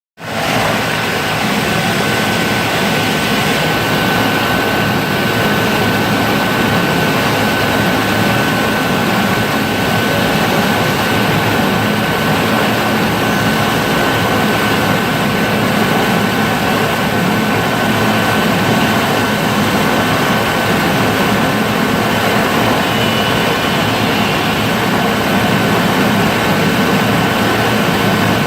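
Induction furnace running during a brass melt: a loud, steady industrial drone with a constant high-pitched whine over it.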